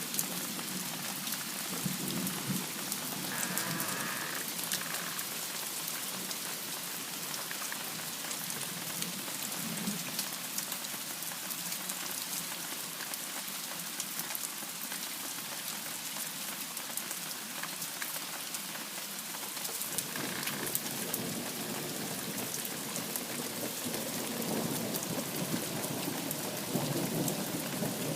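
Heavy rain falling steadily, a constant hiss, with thunder rumbling in low swells, growing stronger in the last third.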